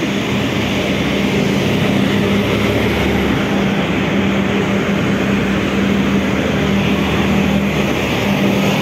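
Busy street traffic: vehicle engines running with a steady hum under the noise of passing cars and buses.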